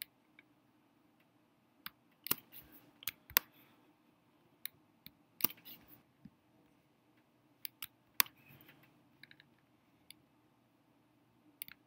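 Scattered computer mouse and keyboard clicks, some single and some in quick clusters of two or three, over a faint steady hum.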